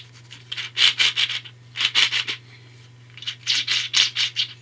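Plastic twisty puzzle being turned and handled: quick scratchy, clicking strokes in three short runs.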